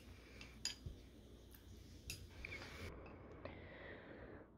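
Faint, scattered clicks of chopsticks against a ceramic bowl and paper noodle cup as instant noodles are lifted out and eaten, about five light taps in all.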